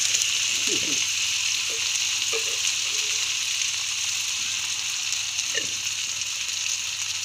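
Crickets frying in hot oil in a pan, a steady sizzle as they are fried until crisp.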